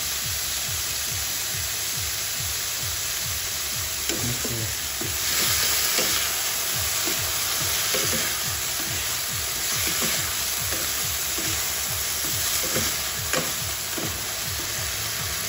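Pork, onion and tomato sizzling in a nonstick pan as wooden spatulas stir and scrape through them. The sizzle swells about five seconds in.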